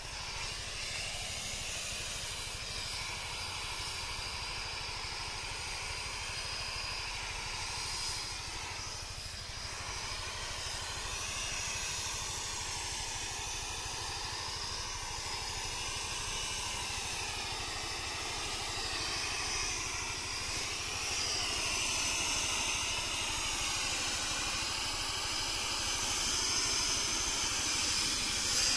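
High-pressure spray lance hissing steadily as it atomises pesticide into a fine mist. The hiss wavers a little as the spray is swept across the trees. Underneath runs the low hum of the 5 hp diesel engine driving the HTP sprayer pump.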